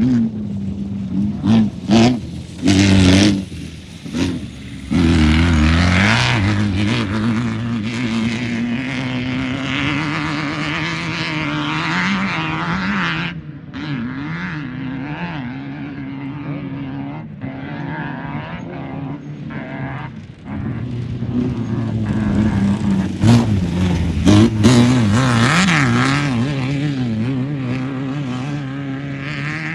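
Off-road race car engine revving. It gives several short throttle blips in the first five seconds, then runs hard with its pitch rising and falling and dipping briefly a few times, louder again for a few seconds past the middle.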